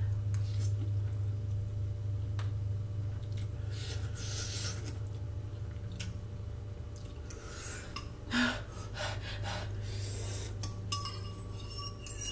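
Eating noodles with a fork: slurping and breathing in short noisy bursts, then a metal fork clicking and scraping against a ceramic bowl, more often near the end. A steady low hum runs underneath.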